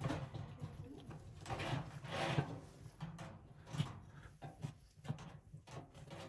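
Metal tongs scraping and knocking in the firebox of a wood-and-coal room-heating stove as a newly lit fire is stoked, over a low steady hum.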